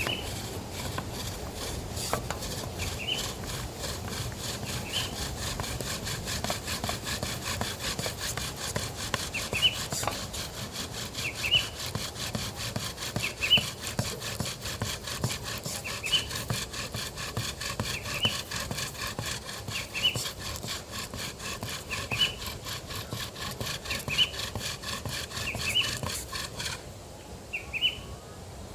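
Bow drill in use: the wooden spindle is spun back and forth in the dead-wood hearth, grinding with a steady, fast rhythm of rubbing strokes that stops near the end.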